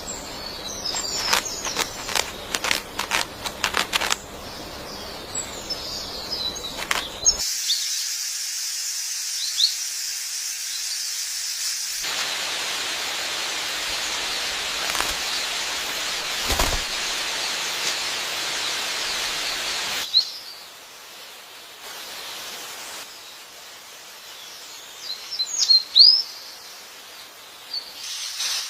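Short, high chirps of a tailorbird, scattered through the recording and loudest near the end. They come over a busy outdoor background: a run of rapid clicks in the first few seconds, then a long steady high hiss in the middle that stops abruptly.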